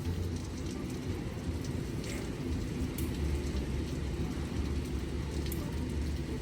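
Hurricane Beryl's wind and rain: a steady low rumble of wind with the hiss of rain over it, and a few faint ticks of drops.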